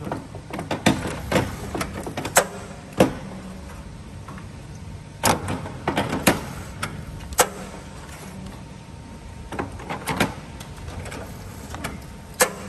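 Semi-automatic gummy depositing machine running: a steady low hum with irregular sharp metallic clacks as its mechanism works over the mould trays.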